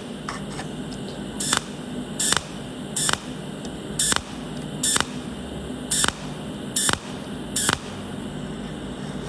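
TIG welding arc on thin galvanized sheet metal: a steady buzzing hiss with a short, loud hissing surge about every 0.8 seconds, eight in all, as the weld is laid down in pulses, spot by spot, along the edge.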